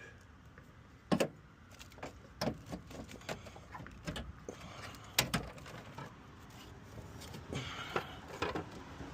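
Scattered knocks, clicks and clatter of a replacement car alternator and parts being handled and test-fitted in the engine bay. There are two louder knocks, about a second in and about five seconds in.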